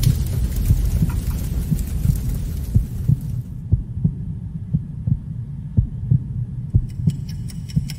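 Heartbeat-like soundtrack thumps, about two a second, over a low hum. A high hiss under them stops about three and a half seconds in, and a sharp ticking starts near the end.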